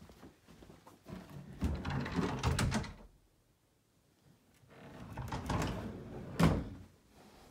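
A closet door being opened with about two seconds of rumbling, then closed a few seconds later, ending in a sharp knock.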